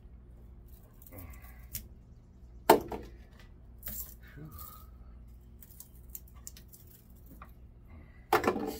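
Scattered metal clinks and knocks from handling tools and scrap motor parts. A sharp knock comes about a third of the way in and a lighter one a second later, then a short clatter of several near the end.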